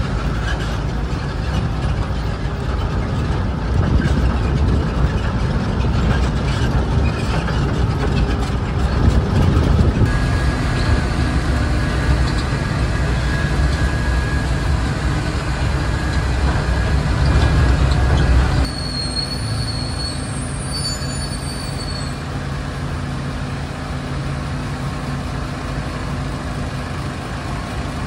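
Loud, heavy low rumbling for the first two-thirds, dropping suddenly to the steady idle of a small Hokuriku Juki Kogyo narrow-gauge diesel locomotive. A few brief high chirps come just after the drop.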